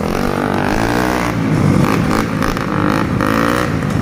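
Trail motorcycle engines running on the move, the engine note climbing and dropping again several times as the bike accelerates through the gears.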